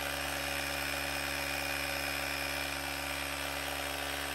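AUTOOMMO cordless tire inflator's small electric compressor running steadily while inflating a motorcycle's front tire.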